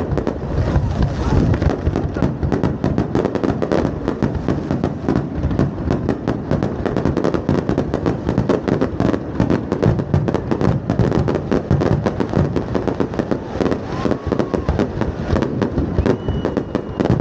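Fireworks going off in a dense, continuous barrage of rapid bangs and pops, with no break between bursts.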